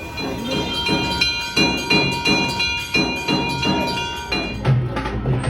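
Metal bells ringing, struck over and over so their tones overlap in a steady clangour. Near the end the sound cuts to music with drums.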